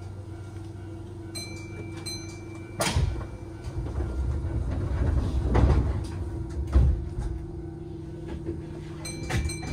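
Keihan train's doors closing: a high electronic beep, then the sliding doors shut with a sharp knock about three seconds in, followed by low rumbling and further knocks, and another short beep near the end, over a steady low hum from the train's equipment.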